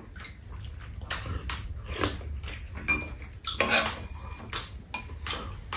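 Spoons clinking and scraping against bowls and a pan of fried rice, with chewing sounds: two people eating. Light irregular clinks come throughout, with a longer scrape a little past halfway.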